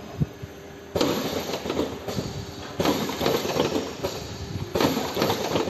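Vertical automatic cartoning machine running, a dense clatter of many small clicks and knocks. The clatter swells sharply about once every two seconds as the machine cycles.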